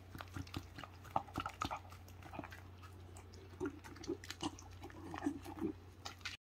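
A dachshund chewing a piece of soft banana muffin: many quick, irregular wet smacks and mouth clicks as it bites and chews, with it licking its lips near the end. A low steady hum runs underneath.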